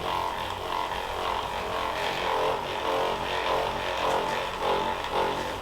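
Handheld electric massager running on the lower back, a steady motor buzz whose loudness wavers as it is pressed and moved.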